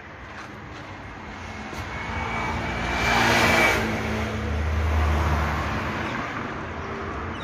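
Road traffic going past: a vehicle's noise swells to a peak about three seconds in and fades, with a thin high whine over it. A low engine rumble follows about five seconds in.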